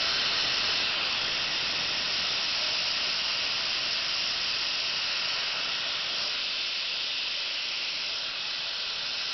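Compressed air hissing steadily out of an air compressor's tank as the air is released, slowly losing a little strength.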